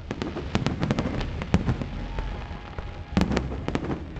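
Aerial fireworks bursting: a quick, irregular run of sharp bangs and crackles, thickest about three seconds in, over a low rolling rumble.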